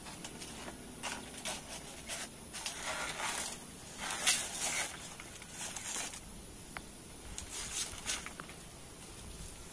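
Fresh banana leaf being cut with a knife and torn into pieces: a series of crisp ripping, rustling strokes, the loudest about four seconds in.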